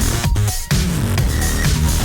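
Electronic dance music with a heavy, steady beat.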